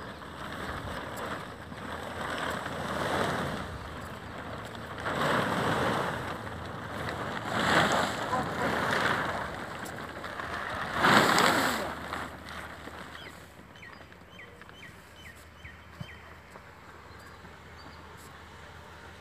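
Wind gusting across the microphone in several swells of rushing noise, the strongest about eleven seconds in, then easing off. A bird chirps a few times as it dies down.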